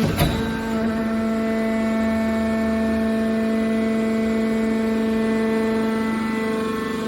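Hydraulic power unit of a scrap car baler running with a steady hum, with one sharp bang just after the start.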